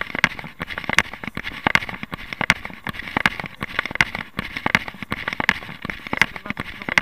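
A runner's footfalls on a paved pavement in a steady rhythm of nearly three steps a second, every other step striking harder.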